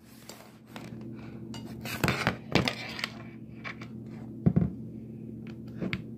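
Handling noise: several sharp clicks and knocks, the strongest about two, two and a half and four and a half seconds in, over a steady low hum.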